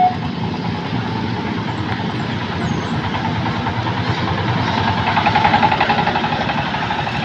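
Motorcycles and other road traffic running past, with a rapid pulsing engine on a small open motorised rig getting louder as it passes close about five to six seconds in. A two-tone warning signal cuts off right at the start.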